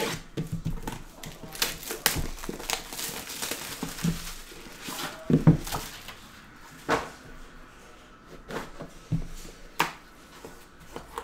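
Shrink wrap being slit and stripped off a sealed trading-card hobby box, with plastic crinkling. Then the cardboard box is handled and its hinged lid opened, with scattered taps and knocks, the sharpest about five and a half and seven seconds in.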